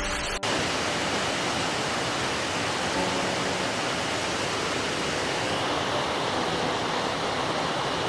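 A heavy-flowing waterfall pouring, a steady dense rush of water. Guitar music cuts off sharply less than half a second in.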